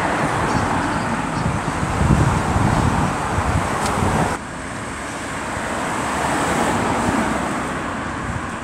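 Cars passing on a town road, with wind on the microphone. The noise drops suddenly about four seconds in, then swells and fades again as another car goes by.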